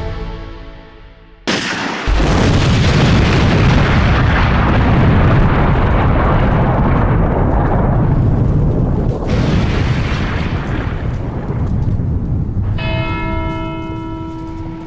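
Gunpowder magazine exploding: a sudden blast about a second and a half in, followed by a long, loud rumble that slowly dies away over about ten seconds. Music fades out before the blast and returns near the end.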